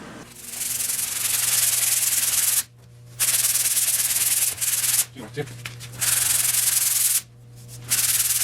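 Sanding on the bare steel body panels of a Triumph Spitfire: a loud, steady hiss in four stretches of one to two seconds, with three short breaks.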